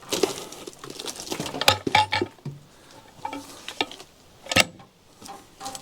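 A log being worked over on a sawmill bed with a can hook: scraping and rustling of the hook and bark, with several sharp knocks, the loudest about halfway through.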